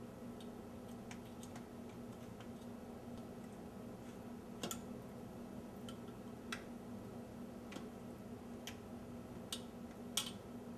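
Faint, irregular clicks and light taps from fingers and marinated fish pieces against a stainless steel container as the marinade is spread by hand, with a steady low hum underneath.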